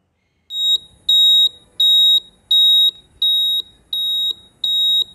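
Quiz countdown timer sound effect: a run of evenly spaced high electronic beeps, about three every two seconds, starting about half a second in, with faint ticking between them.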